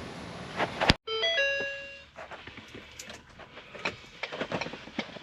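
A short electronic chime of several stepped tones, lasting about a second, the sound of the RV's dash electronics powering on, followed by scattered light clicks.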